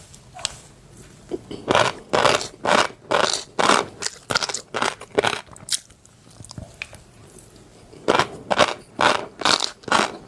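Close-miked chewing of crunchy fish roe: sharp, crackly crunches about twice a second. They thin out to faint noises for a couple of seconds midway, then start again near the end.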